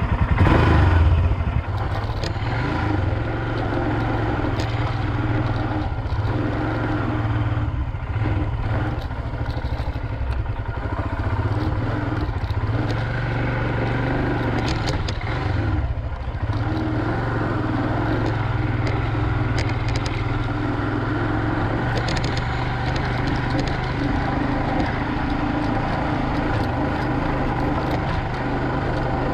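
Royal Enfield Himalayan's single-cylinder engine running as the motorcycle rides off, louder for the first second or so and then steady, with a few short knocks and clatters.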